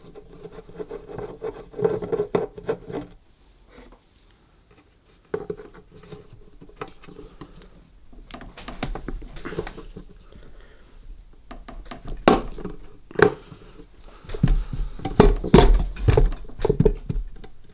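Clicks, knocks and scrapes of a screwdriver and hands working at seized, rusty screws on the metal case of a Facit C1-13 mechanical calculator. They come in irregular clusters, with a short lull about four seconds in, and are busiest near the end.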